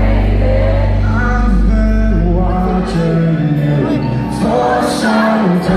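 Loud live concert music played over a PA and picked up by a phone in the crowd: a heavy bass line under a singing voice. The deepest bass drops away for about a second near the end, then comes back.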